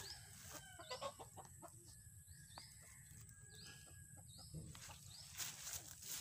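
Chickens clucking faintly, with short high calls repeating every half second to second.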